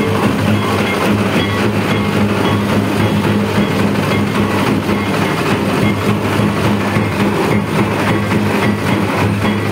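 A street drum troupe beating together in a dense, loud, continuous rhythm: a giant bowl-shaped kettle drum struck with sticks and several cylindrical drums played with two sticks each, over a steady low drone.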